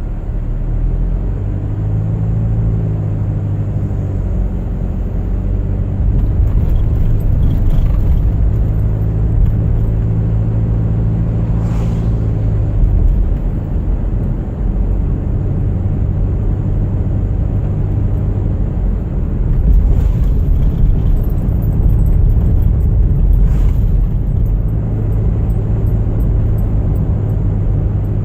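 Car driving on a winter road: a steady low engine hum under a constant rush of road noise, with a few faint brief knocks.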